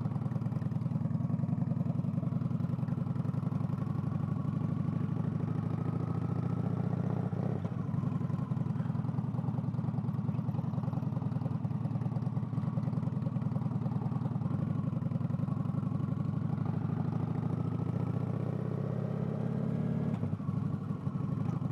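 Motorcycle V-twin engine running steadily while riding, with a brief dip in level about twenty seconds in.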